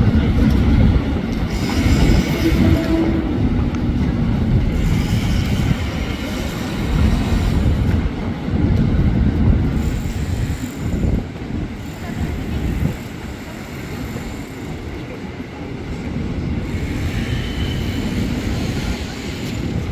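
JR 205 series electric commuter train rolling along the tracks: a heavy rumble of wheels on rail with clicks over the joints and a couple of brief high wheel squeals.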